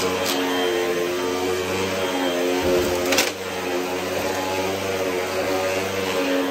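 Hoover WindTunnel upright vacuum cleaner running steadily under suction, with a steady hum and a sharp click about halfway, after which it runs a little quieter.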